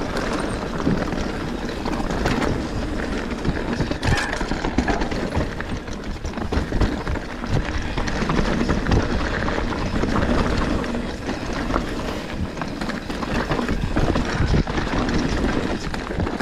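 Enduro mountain bike riding fast down a rough dirt trail: tyres rumbling over rocks and roots, with frequent knocks and rattles from the bike over the bumps.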